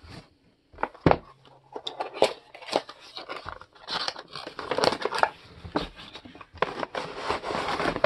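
Cardboard model box and its clear plastic packaging tray being handled and slid apart: a series of knocks and clicks, then scraping and crinkling of stiff plastic against cardboard.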